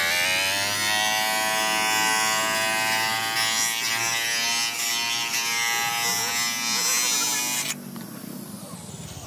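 Bench-mounted electric motor with a cutting disc on its spindle, running with a loud steady whine. The whine climbs as the motor comes up to speed, holds level, and stops abruptly near the end.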